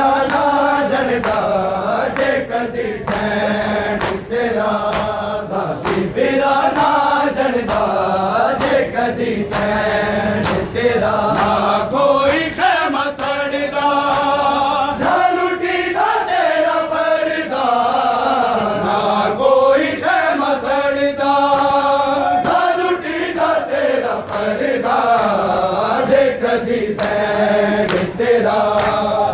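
Men's voices chanting a noha, a Shia lament, in unison, in long sung phrases, over repeated sharp slaps of hands beating on chests (matam).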